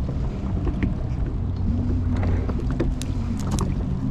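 A boat motor running steadily at low revs, a low even hum, with water and wind noise and a few sharp clicks and knocks about three seconds in.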